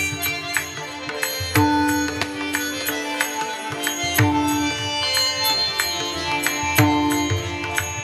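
Instrumental interlude of Marathi devotional kirtan music without singing: held melodic notes over a steady rhythm of percussion strikes.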